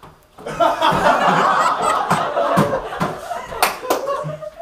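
A group of teenagers laughing together, starting about half a second in, with two sharp smacks near the end.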